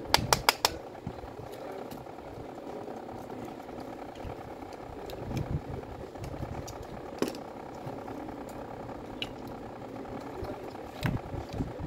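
Handling noise from a disassembled orbital sander's plastic motor housing and brush-holder parts: a quick run of about five sharp clicks and taps at the start, then a few single clicks later, over a steady background hum.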